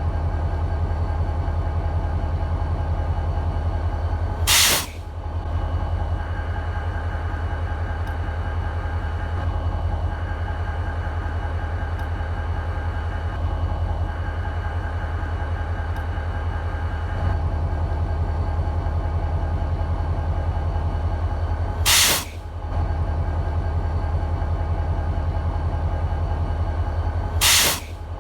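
BNSF SD40-2 locomotive's 16-cylinder EMD 645 two-stroke diesel idling with a steady low throb. It is broken three times by a short, loud hiss of air: about five seconds in, at about 22 seconds, and near the end.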